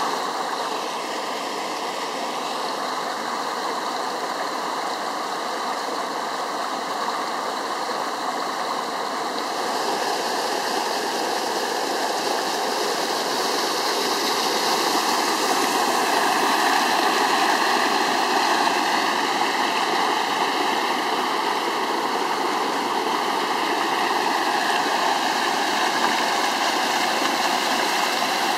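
Flood-swollen forest stream after a torrential downpour: muddy water rushing steadily down small cascades and over logs, growing a little louder about ten seconds in.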